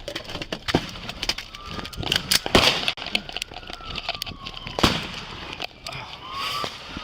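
Police car siren wailing, its pitch slowly rising and falling, over many sharp clicks and knocks, two of them loud, about two and a half and five seconds in.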